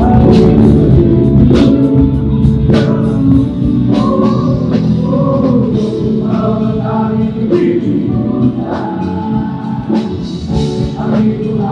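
A live band playing while a group of singers sings together into microphones, with drum strikes and bass guitar under the voices.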